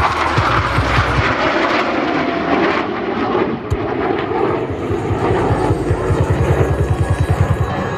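Jet engines of a pair of Blue Angels F/A-18 Super Hornets flying by, a steady roar with a throbbing low rumble that strengthens in the last couple of seconds.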